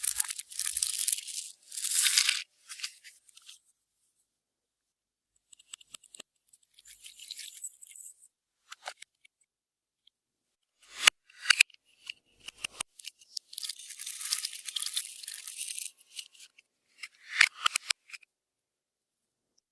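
Clear slime being worked by hand, giving sticky crackling and tearing sounds in several separate bursts, with a sharp click about eleven seconds in.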